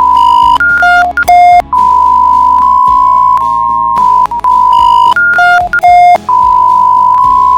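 Synthesized emergency alert alarm: a steady high tone, broken twice by a quick run of beeps at several different pitches, over a low hum.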